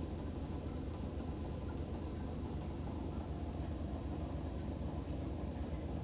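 Panasonic NA-FD85X1 top-load inverter washing machine spinning its drum in the spin-dry cycle: a steady hum with a faint, even whine.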